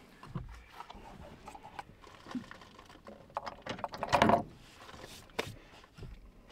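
Light clicks and knocks of a mug and a thermos bottle being handled over a wooden table, with the loudest clatter about four seconds in as the mug is hung on a wall hook.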